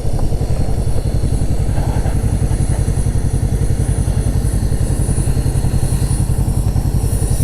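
Motorcycle engine running steadily, close by, with an even, fast low pulse and no clear revving.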